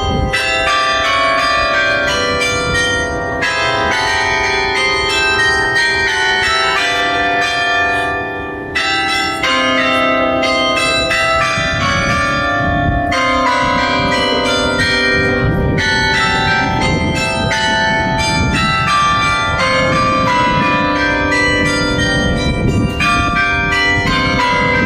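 Carillon bells of the Torre dos Clérigos ringing a tune: many struck notes at changing pitches in quick, unbroken succession, each ringing on and overlapping the next.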